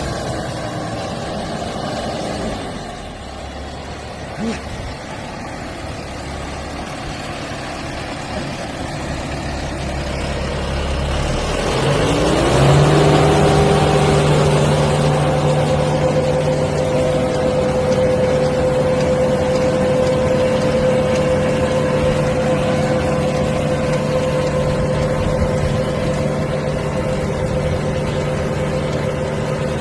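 Tractor engine running. About twelve seconds in, its pitch rises as it speeds up, and it then holds steady at the higher speed.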